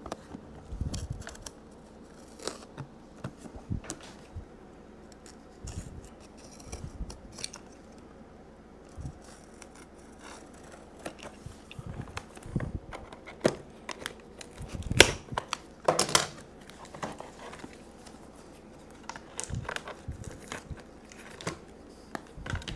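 Taped fiberglass casing of a lithium battery pack being cut along its seams and peeled back: irregular snips, scrapes and tearing of the wrap, loudest in a cluster of rips a little past the middle.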